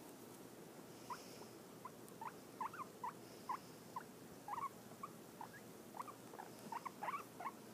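A guinea pig, held in a hand, making faint short squeaks, a few each second at uneven spacing.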